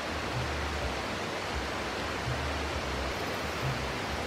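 A steady, even rushing noise with intermittent low rumbling.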